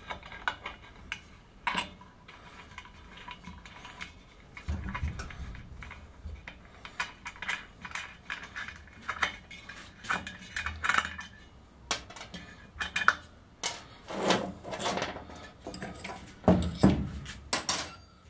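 Small irregular metallic clicks and scrapes as the brass air-valve nipple is turned out by hand from the back of a pressure tank (hydraulic accumulator), with a few duller knocks of the tank being handled.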